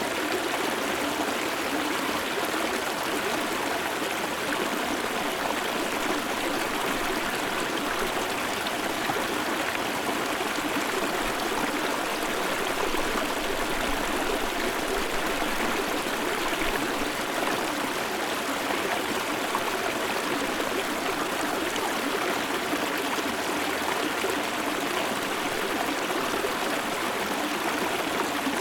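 Shallow river stream flowing steadily over stones, recorded close to the water, an even rushing and trickling with no pauses. A faint low rumble sits underneath for a few seconds in the middle.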